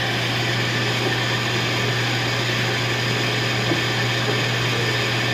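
Royal Master TG 12x4 centerless grinder running with its grinding and regulating wheels turning and its hydraulic unit on: a steady machine hum and whir, with no cutting or knocks, a sign the machine is running normally.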